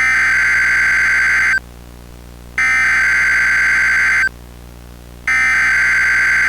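Emergency Alert System SAME header: three bursts of digital data tones, each about a second and a half long and about a second apart. This is the coded header that opens an EAS alert.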